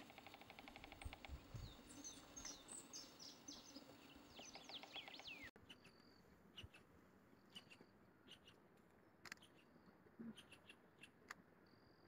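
White-fronted woodpecker calling faintly: a quick rattling run of notes, then several high, squeaky notes that slide downward. After about five and a half seconds the sound changes abruptly to scattered short high calls and faint clicks.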